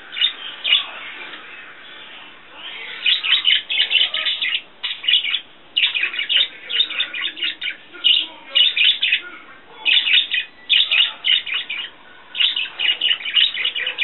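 Budgerigar warbling: rapid runs of high chirps in bursts with short pauses, quieter for the first couple of seconds, then near-continuous chatter.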